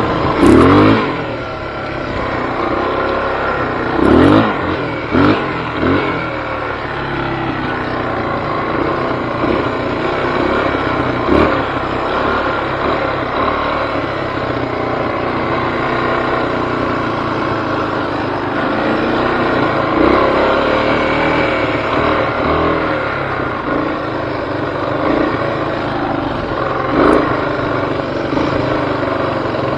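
Off-road vehicle's engine running under way, revving up sharply a few times in the first dozen seconds, then running fairly steadily with small rises and falls in speed.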